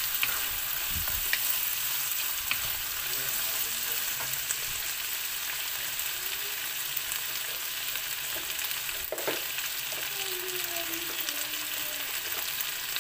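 Sweet potato sticks and ground pork sizzling steadily in a hot wok, with a wooden spatula scraping and knocking against the pan a few times in the first seconds.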